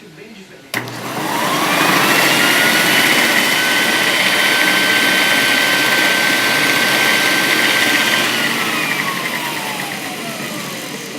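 Electric motor of a Walita 400T floor buffer-vacuum cleaner starting with a click and whining up to speed, running steadily, then winding down with a falling whine from about eight seconds in.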